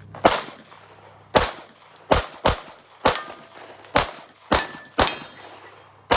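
Kahr semi-automatic pistol fired nine times at an uneven pace, from about half a second to a second between shots. Several shots are followed by the ring of steel targets being hit.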